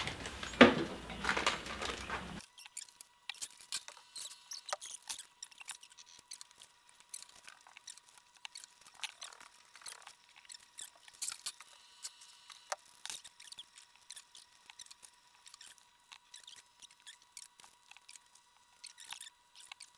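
Faint crinkling and crackling of plastic bags as bagged whole chicken carcasses are handled and packed into a plastic tub, thin and tinny over a faint steady high hum. The lower sound drops away about two seconds in, leaving only scattered light crackles.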